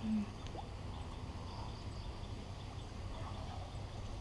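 Steady low outdoor rumble, such as wind on the microphone or water running through a weir, with a brief voice sound right at the start and no distinct splash.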